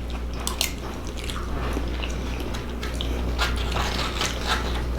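A man chewing and biting food close to the microphone, with many small, sharp crunching clicks over a steady low hum.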